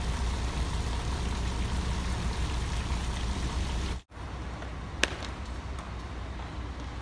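Small fountain splashing steadily, over a low rumble. It cuts off abruptly about four seconds in to quieter indoor room tone, with a sharp shoe tap on stone steps about a second later and a few fainter taps after it.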